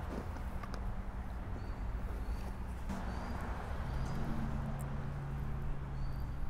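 Outdoor background: a low steady hum that fades in and out, with a few brief, high bird chirps.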